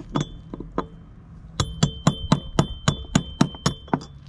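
Ball-peen hammer tapping a steel punch to drive the prop shaft seals out of a Minn Kota trolling motor's lower unit end cap. There are a few spaced strikes, then after about a second and a half a steady run of about ten ringing metallic taps, roughly three to four a second.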